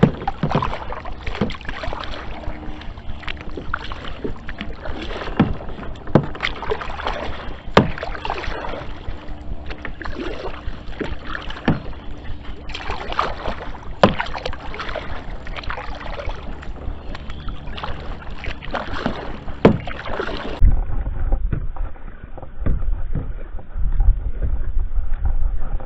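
Kayak paddling: a double-bladed paddle dipping and pulling through the water, with a splashy stroke about once a second. In the last few seconds a low rumble takes over.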